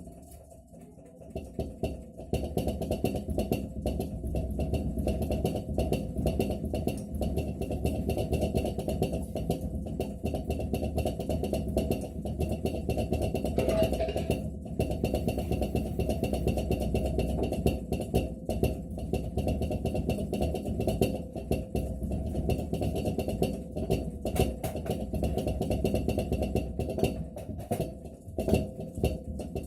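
Atlant refrigerator knocking: a rapid, continuous rattling clatter over a steady low hum, starting about two seconds in. It is the evening knocking the owner reports persisting even on a voltage stabiliser.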